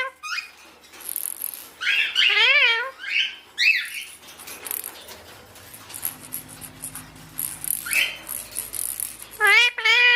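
A pet parrot giving several short warbling calls, the last pair near the end, with rattling and clicking in between as it plays on its cage.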